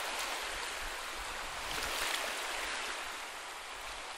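Sea waves washing on a beach, a steady rush of surf that swells and ebbs in slow surges.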